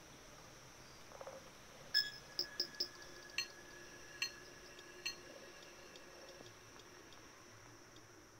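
A series of light, glassy clinking strikes, about seven in three seconds. The first leaves a high ringing tone that lingers for several seconds. Underneath runs a faint steady high hiss like an insect chorus.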